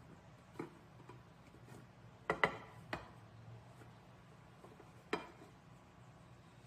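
A few sharp clicks and taps of kitchen utensils against a dish: one soon after the start, three close together about two and a half seconds in, and one more a little past five seconds.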